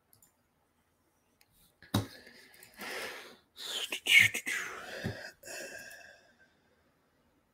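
A man's wordless vocal sounds close to the microphone, after a sharp click about two seconds in, loudest a little past the middle with a falling pitch.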